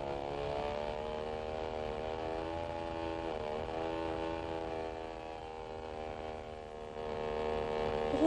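Small propeller aeroplane engine droning steadily in flight, its pitch dipping briefly about three and a half seconds in and then recovering.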